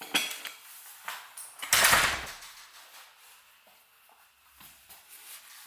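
A sharp knock, then a louder scraping rustle lasting about half a second, about two seconds in, followed by a few faint clicks: sounds of something being handled or moved.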